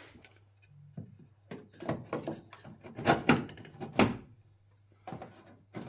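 Irregular clicks, knocks and scrapes as a small retaining clip by the bonnet strut's ball-joint mounting is worked off, with a sharp click about four seconds in.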